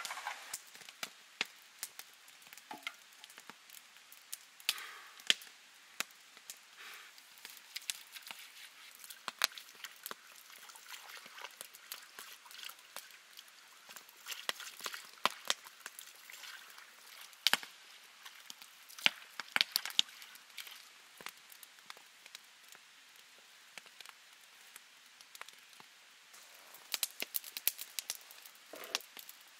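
Water splashing and dripping onto a flat stone slab: irregular sharp drips and small splashes. Near the end, footsteps crunching through dry fallen leaves.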